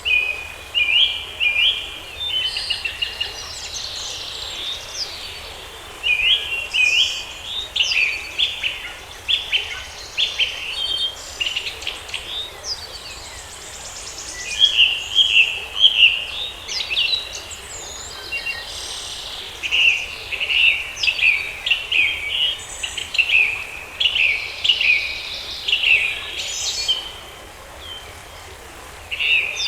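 Songbirds singing in a forest: repeated phrases of quick, high chirps and whistled notes, coming in groups with short pauses between them, over a faint steady background hiss.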